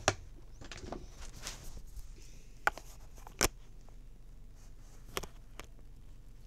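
A few sharp clicks and knocks from the camera being handled and moved, the loudest about three and a half seconds in, over faint room noise.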